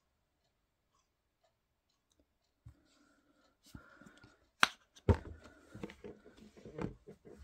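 Plastic squeeze bottle of red sauce being squeezed out: near silence at first, then a sharp click a little after halfway, followed by a crackling, sputtering run of squirts.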